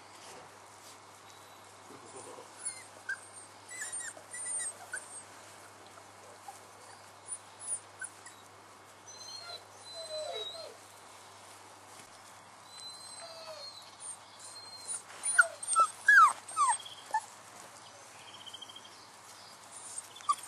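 Four-week-old Dalmatian puppies whimpering and squeaking in short, high-pitched cries scattered throughout, with the loudest cluster of falling cries about fifteen to seventeen seconds in.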